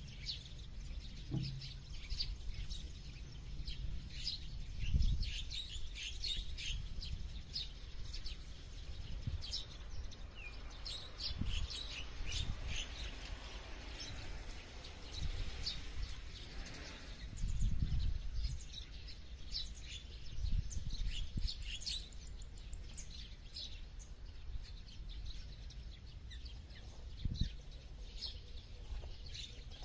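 Several small birds chirping and twittering continuously, many short high calls overlapping, over a background of irregular low rumbles.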